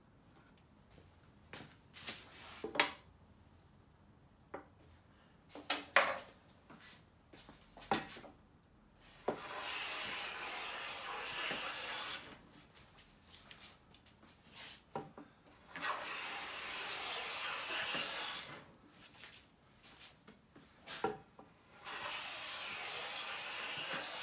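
Siegley StS #7 jointer-size bench plane cutting along a pine board: three long strokes of steady shaving hiss, each about three seconds, the first about nine seconds in and the last running to the end. Before the first stroke come a few sharp knocks and clicks.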